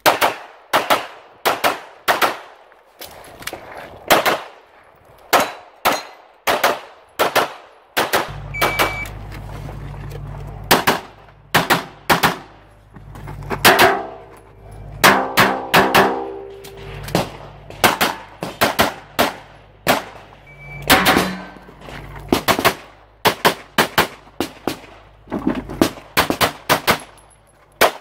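CZ Shadow 2 pistol fired rapidly in IPSC competition: long strings of shots, many in quick pairs, broken by short pauses during reloads and movement. A short high electronic beep from a shot timer sounds twice, each time starting a new string.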